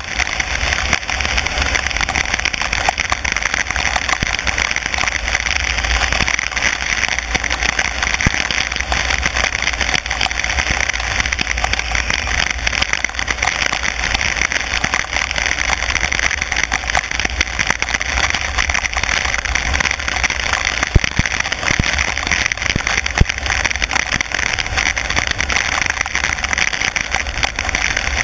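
A car driving on a wet road in rain: a steady hiss of tyres on the wet surface and rain on the car over a low rumble, with a few sharp clicks scattered through.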